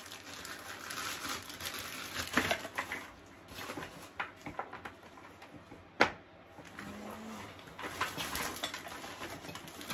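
Plastic packaging rustling and hard plastic parts clicking and knocking while castor wheels are fitted into a gaming chair's plastic five-star base, with one sharp click about six seconds in.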